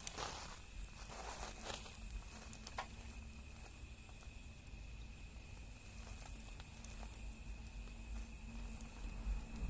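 Wood fire burning with soft crackling. A couple of short hissing flurries come early, then scattered sharp pops and snaps, over a low steady background hum.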